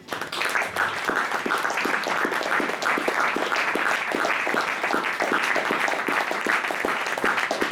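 Audience applauding a string quartet at the end of a piece: dense, steady clapping that breaks out suddenly out of near silence.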